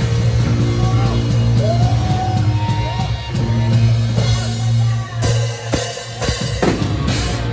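Live hardcore punk band playing loud, with distorted guitars, bass, drums and vocals. About five seconds in the full band cuts to stop-start hits: a few sharp drum and cymbal accents with short gaps between them.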